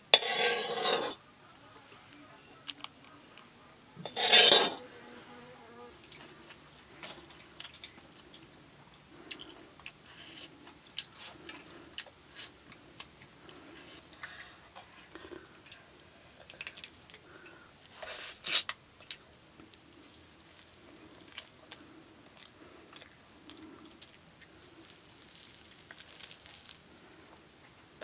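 Utensils clattering and clinking against a metal pan, a clay bowl and a metal plate as mutton ribs are served, with three louder clatters. Between them, small clicks and soft repeated chewing as a child eats rice and ribs by hand.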